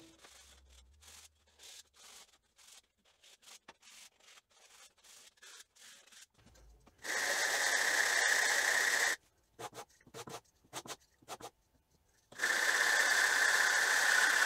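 Hand sanding plywood on sandpaper. At first a run of quick, light rubbing strokes; then, twice, a louder steady scrubbing of about two seconds as a small plywood drawer frame is rubbed over a sheet of sandpaper on the workbench to sand its top flat and smooth.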